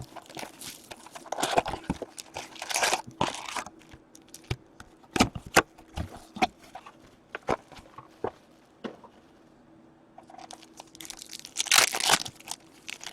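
Hockey card box and foil card pack being torn open by hand: bursts of tearing and crinkling wrapper, with scattered clicks and taps in between and another burst of crinkling near the end.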